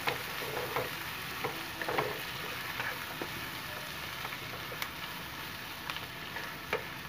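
Sliced onions frying in hot coconut oil in a nonstick pan, a steady sizzle, with the spatula scraping and tapping against the pan now and then as they are stirred.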